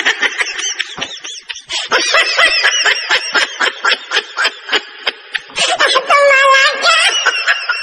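High-pitched, sped-up cartoon-style giggling sound effect in rapid bursts, with a longer held squeal about six seconds in.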